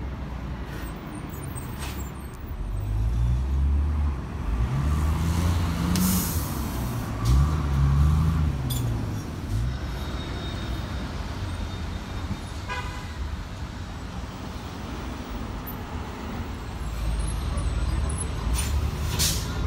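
City transit buses driving past and pulling away in street traffic. The diesel engine note rises and falls twice as a bus accelerates through its gears, and another engine swells near the end.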